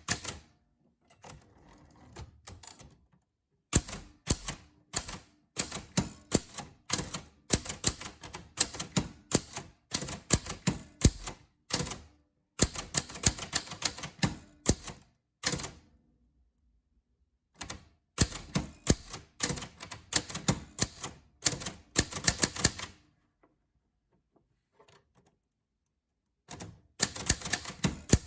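Typewriter keys struck in quick runs of sharp clacks, in several bursts separated by pauses of two or three seconds.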